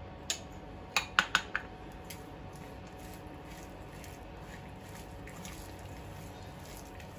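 A few sharp clinks of a metal spoon against a small ceramic bowl as chutney is scraped out and the bowl is set down, within the first second and a half. After that, faint soft squishing of a hand mixing red chutney into sliced onions in a steel bowl.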